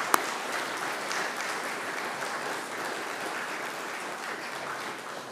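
Audience applauding, with one loud single clap close by just after the start; the applause eases off slightly toward the end.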